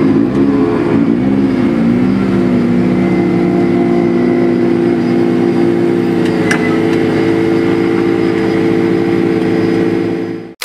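Ford Fiesta R5 rally car engine blipping the throttle a few times, then running at a steady pitch as the car moves off slowly.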